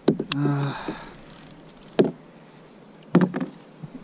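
A few sharp knocks and thumps on the kayak as a freshly landed thornback ray and the fishing gear are handled, with a short wordless grunt about half a second in.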